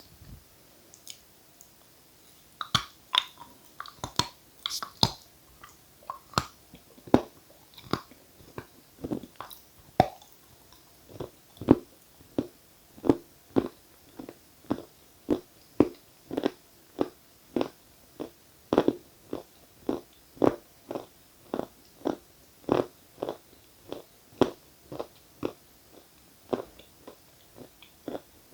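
A person biting and chewing crunchy edible chalk, close to the microphone: a few sharp, bright crunches about three seconds in, then steady chewing at a little under two chews a second.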